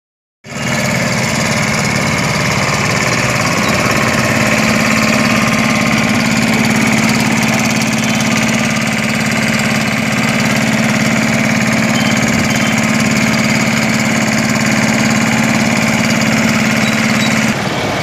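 Small ride-on tandem road roller's single-cylinder air-cooled diesel engine running steadily with a loud, even drone.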